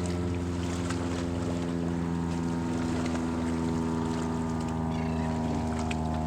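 Motorboat engine running at a steady pitch, an even drone with no change in speed, over a faint wash of water.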